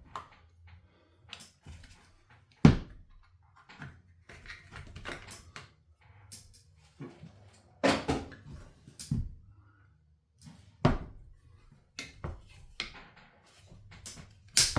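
Scattered knocks, taps and clatter of hand tools and metal parts being handled on a workbench while a chainsaw is taken apart, the sharpest knock about three seconds in.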